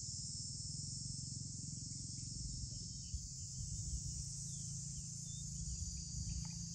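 Steady, high-pitched chorus of insects, with a low rumble of wind on the microphone underneath.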